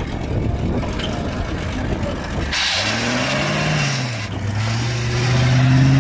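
Modified 4x4 buggy's engine revving hard under load while climbing out of a sandy ditch, with a slipping fan belt squealing, a horrid sound. The revs rise and fall about halfway through, then are held high and loud near the end.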